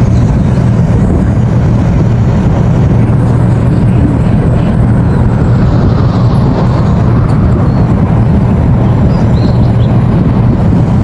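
Excavator's diesel engine running steadily, a loud, even low rumble.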